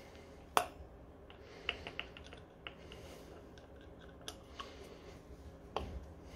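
Light metallic clicks and clinks of small tools and parts being handled at a scooter wheel hub during a bearing replacement: one sharp click about half a second in, a quick run of small ticks around two seconds in, then a few scattered clicks.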